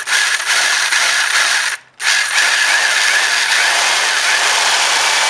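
Electric drill with a 1/2-inch metal drill bit running and cutting a hole. It stops for a moment about two seconds in, then runs steadily again.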